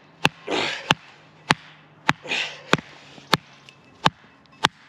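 Wooden baton striking the spine of a Schnitzel TRI bushcraft knife about eight times, one sharp knock roughly every 0.6 s, with two heavy breaths between strikes. The blade is being batoned into knotty wood that will not split.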